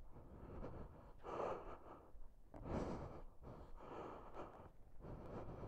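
A person breathing faintly and close to the microphone, an even rhythm of breaths roughly one every second or so.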